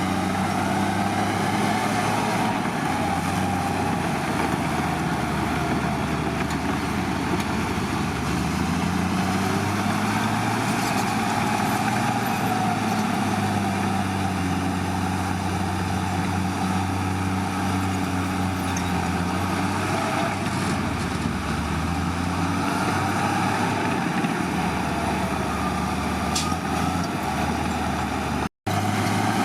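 Heavy diesel engine of earthmoving equipment running steadily, its pitch slowly rising and falling as the load changes. The sound drops out for an instant near the end.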